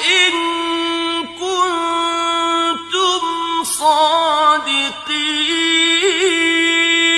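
A single voice chanting a Quran recitation in melodic style. It holds long notes with wavering ornaments, in several phrases that each end in a downward slide.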